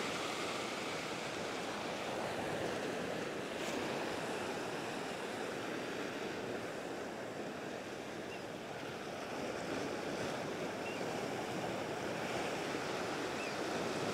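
Ocean surf washing over a low rock shelf: waves breaking and foaming water rushing across the rocks. A steady wash that eases slightly a little past halfway and builds again toward the end.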